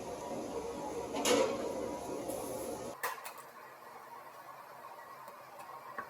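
Light metallic clinks and a knock of tools or car parts being handled, over a steady background hum that cuts off abruptly about three seconds in, leaving a few faint clicks.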